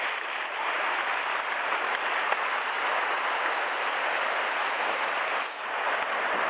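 Sea surf breaking and washing over the rocks of the shoreline: a steady rushing wash.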